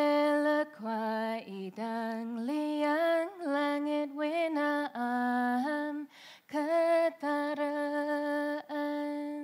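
A woman singing an unaccompanied phrase of an old Kelabit folk song. She holds long, steady notes joined by small sliding ornaments, with brief breaths between the phrases.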